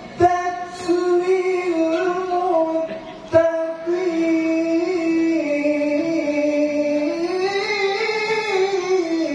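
A man reciting the Quran in melodic tilawah style, amplified through a handheld microphone. He sings long, held, ornamented notes at a high pitch, in two phrases with a brief breath just after three seconds in.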